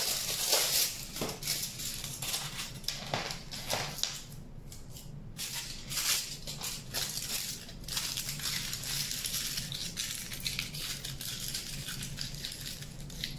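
Aluminium foil crinkling as it is crumpled and pressed by hand around a wire armature, a busy rustle of many small crackles with a lull of about a second some four and a half seconds in.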